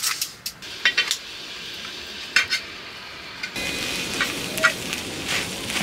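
A spatula scraping and knocking in a hot pan as rice is stir-fried in leftover spicy webfoot-octopus sauce. A steady sizzle sets in about three and a half seconds in.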